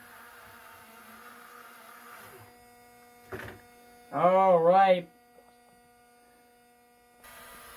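Faint steady electrical hum, a single small click a little past three seconds in, then a short pitched vocal sound from a person, under a second long.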